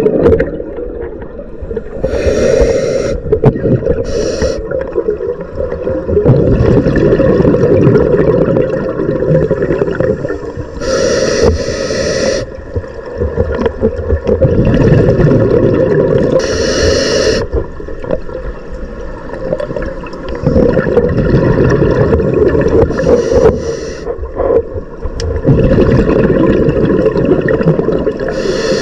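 Scuba breathing heard underwater through the camera's housing: the rumble and gurgle of exhaled bubbles from a diver's regulator, swelling and fading breath by breath every few seconds, with short hisses in between.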